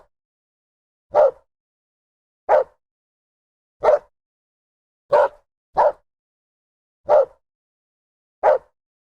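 A dog barking in single sharp barks, one about every second and a quarter, with a quick pair of barks about five seconds in; about seven barks in all.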